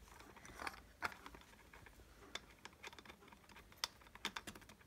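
Faint, irregular light clicks and ticks of a small bolt being screwed in by hand on the cylinder head of a small pit bike engine, with fingers and metal parts tapping against the aluminium.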